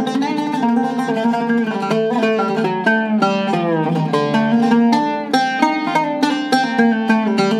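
Seven-course Iraqi-style oud with a cedar soundboard and mahogany back, played solo: a melody of quickly picked single notes, several a second, ringing over the low strings.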